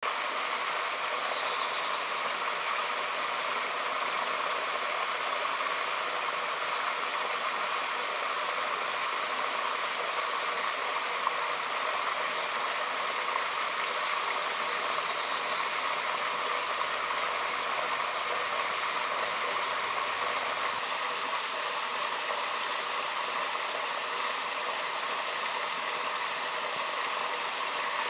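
Rushing stream: a steady, even rush of water. A few faint, short high bird calls come through it, near the start, around the middle and near the end.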